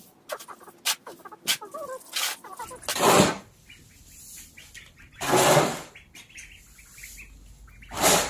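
Plastic scoop shovel scraping and tossing cattle feed on a concrete floor in quick scratchy strokes, with young ducks peeping. Two louder rushing noises come about three and five and a half seconds in.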